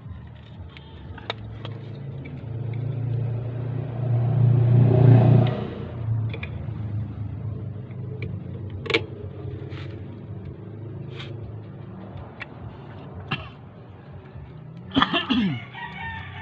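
A motor vehicle's engine passing by: a low running hum that grows louder to a peak about five seconds in and then fades away. Scattered light clicks and taps sound around it.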